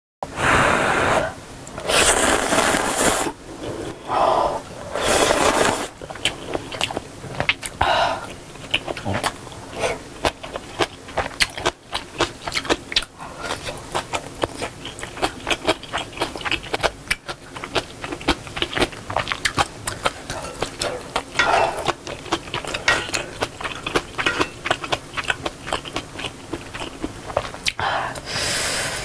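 Close-miked eating of ramen noodles and sausage stew: several loud slurps between long stretches of wet chewing with many small clicks, and chopsticks scraping and tapping on the pot and bowl.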